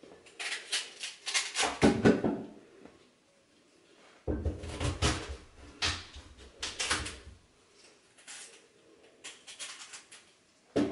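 Kitchen handling noises: bursts of crinkly rustling with soft knocks as things are picked up and moved, in two main spells with a fainter one near the end.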